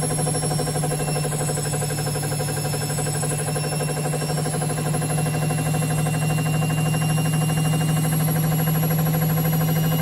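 Baumatic BDI1485D4E washer dryer running: a steady motor hum with a fast, even pulsing and a faint high whine that creeps slightly up in pitch.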